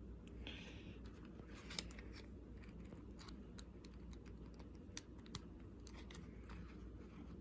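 Faint small clicks and taps, a few scattered over several seconds, from handling and fitting together the plastic parts of an N scale model locomotive as it is reassembled.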